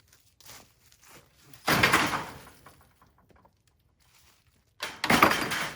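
A few soft footsteps, then two loud, sudden thuds about three seconds apart, each dying away over most of a second.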